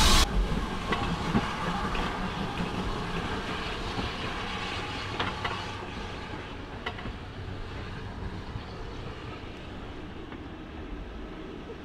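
Steam tank locomotive, the ex-GWR 0-6-2T, running light engine away. A loud hiss of steam cuts off right at the start. Then comes a low rumble with scattered clicks of the wheels over rail joints and points, fading steadily as the engine draws away.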